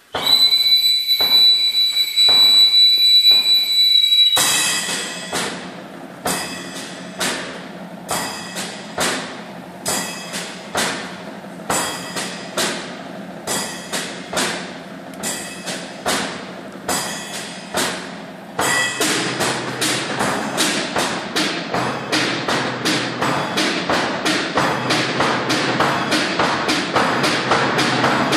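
Percussion quartet playing a train imitation with sticks: a steady high whistle over light taps, then loud regular struck beats like wheels on rails, joined by a denser, faster layer of strokes about two-thirds of the way through.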